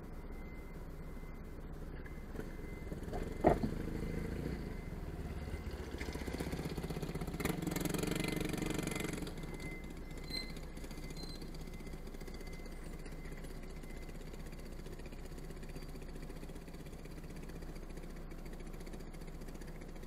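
Car engine idling, heard from inside the stationary car's cabin, with one sharp knock about three and a half seconds in and a louder rushing swell around eight seconds.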